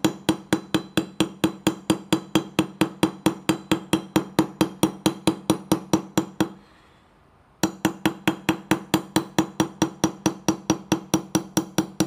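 Small brass hammer tapping a pin punch in quick, even strokes, about four or five a second, driving the extractor pin out of a Sig M11A1 (P228) pistol slide braced on a wooden block. The tapping stops for about a second a little past halfway, then starts again.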